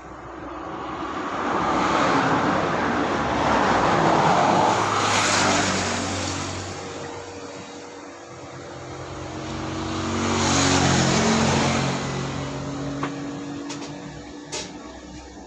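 Two road vehicles passing by one after the other, each swelling up and fading away, the second with an engine note that drops as it goes past. A couple of short clicks near the end.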